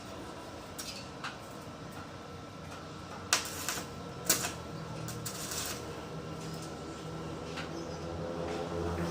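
A series of sharp clicks and knocks, two of them loud in the middle, over a steady low hum that grows louder near the end.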